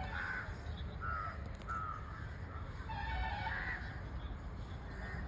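Birds calling in an aviary: a run of short, pitched calls spaced about half a second to a second apart, with a louder cluster of calls about three seconds in, over a low rumble.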